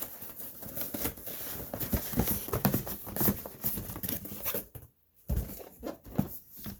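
Cardboard and paper packaging being handled and pulled apart: irregular rustling, scraping and tapping, with a short pause about five seconds in.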